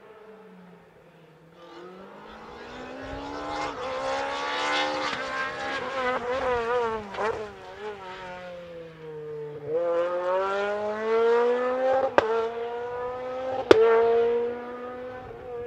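Rally car engine on a special stage, coming up from about two seconds in and revving hard, its pitch climbing, dropping and climbing again through the gears, with two sharp cracks near the end.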